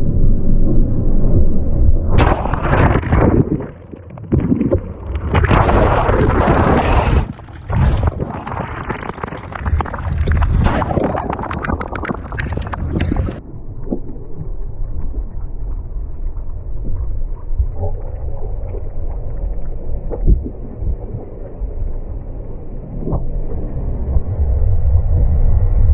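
Big-wave surf rumbling and whitewater rushing over a GoPro microphone. A loud hissing rush of churning water begins about two seconds in and cuts off sharply about halfway through, leaving a dull low rumble.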